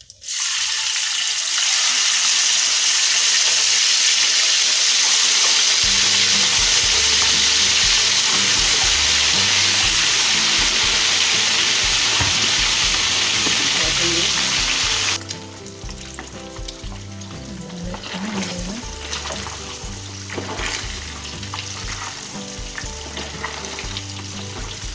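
Catfish pieces frying in hot oil in a wok. A loud sizzling hiss starts suddenly as the fish goes into the oil, and about fifteen seconds in it settles to a quieter frying with many small crackles.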